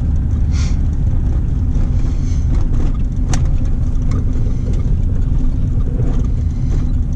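Straight-piped exhaust of a 1994 Chevy S10 pickup, heard from inside the cab while driving, with the engine held steady at around 2000 RPM. It makes a loud, deep, even drone.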